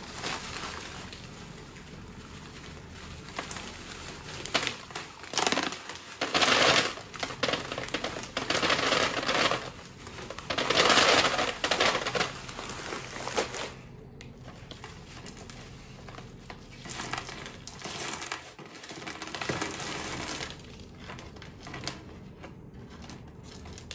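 Small gravel ballast poured slowly from a plastic bag through a paper funnel into a pond bottom drain's weight chamber: the bag crinkling and stones trickling and rattling through in irregular bursts, loudest in the first half. Later, softer rustling as the paper funnel is handled.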